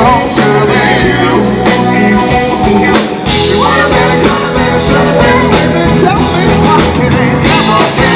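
A live rock band playing electric guitars, bass, keyboard and drums, with a man and a woman singing lead through the PA.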